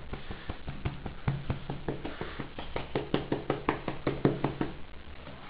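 A cat's head and fur bumping and rubbing against the camera, giving a run of irregular knocks and taps with soft rustling, busiest in the second half.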